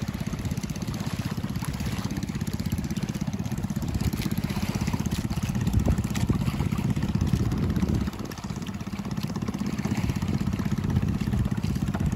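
Outrigger boat's engine running steadily under way, a fast low pulsing throb, dipping briefly about eight seconds in.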